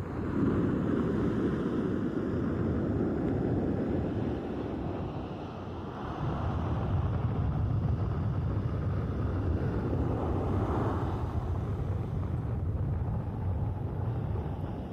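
Sea surf: waves breaking and washing on the shore, a deep steady rush that swells twice, easing off about five seconds in and again near the end.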